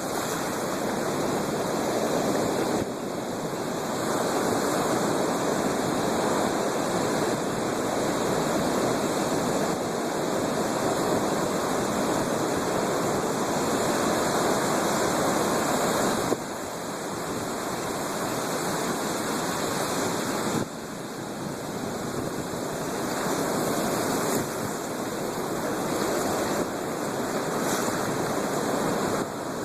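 Storm surf: a dense, continuous wash of breaking waves, with sudden shifts in level several times.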